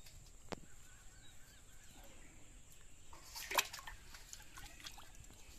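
Quiet rural background with a faint animal call. A short click comes about half a second in, and a brief sharper sound, the loudest moment, comes about three and a half seconds in.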